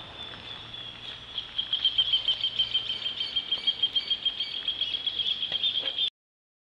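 Insects trilling outdoors: one steady high-pitched chirring that pulses rapidly, gets louder about a second and a half in, and cuts off abruptly near the end.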